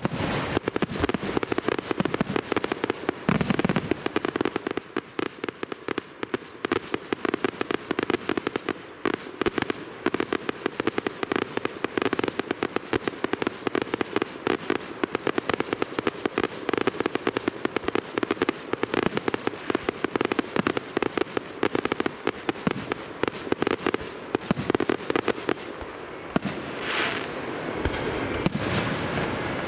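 Aerial fireworks going off in a dense rapid barrage, many sharp bangs and crackles a second. It thins into a softer crackling near the end.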